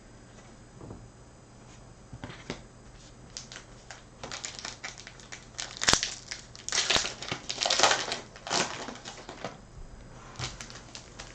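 Foil wrapper of a Topps Chrome baseball card pack being torn open and crinkled: a run of crackly rustles that starts about three seconds in, is loudest in the middle and fades near the end, with a few light clicks before it.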